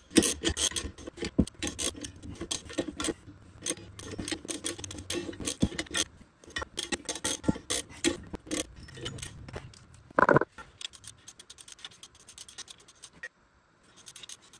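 Hand ratchet clicking in quick runs as it turns the bolts of a ball-joint press, pressing a new ball joint into a suspension wishbone. About ten seconds in there is a short, loud burst of a different sound.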